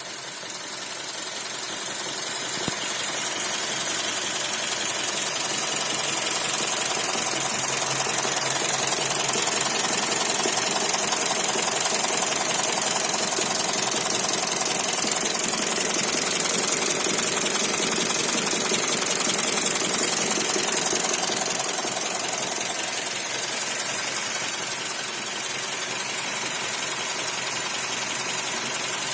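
Suzuki J20A 2.0-litre four-cylinder engine running with an unexplained knock. It gets louder over the first several seconds, holds, then drops back a little about three quarters of the way through.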